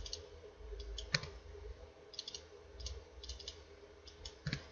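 Computer mouse clicks and keyboard keystrokes, faint and scattered, single and in small clusters, as values are entered in a software dialog.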